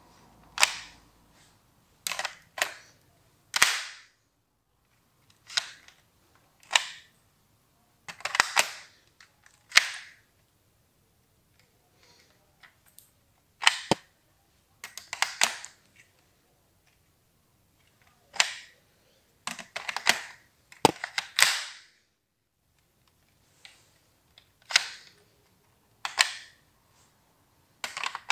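Sharp plastic clicks and clacks from a LEGO-brick MP5 model as its reloads are acted out by hand, coming in small clusters with short pauses between them.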